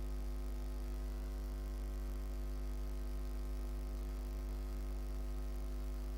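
Steady electrical mains hum, a low buzz with a stack of overtones that does not change.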